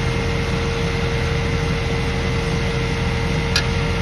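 An engine idling steadily, with a constant hum. A single sharp click about three and a half seconds in.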